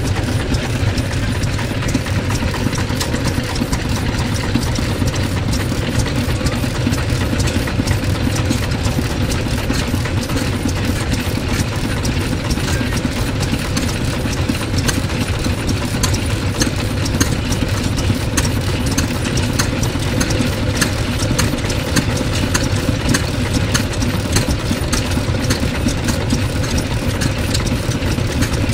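Kubota L12 tractor's Hatz E90L single-cylinder air-cooled diesel engine idling steadily.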